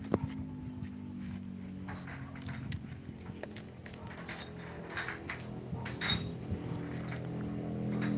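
Scattered light clicks and taps from a puppy being handled on a plastic table, over a steady low hum.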